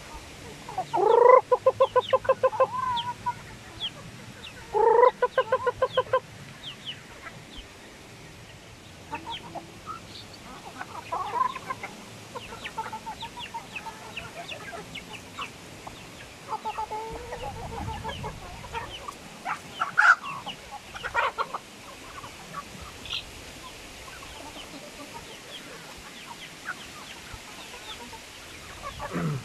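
A flock of chickens clucking and calling. Two loud, pulsing calls come about a second in and again about five seconds in, followed by softer clucks, short high chirps and a sharp tap about twenty seconds in.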